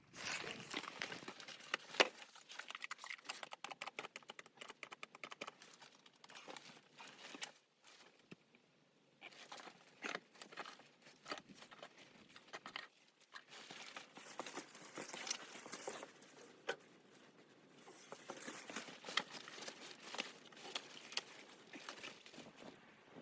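Crinkling and rustling with many small irregular clicks and crackles, like material being handled, pausing briefly about a third of the way in.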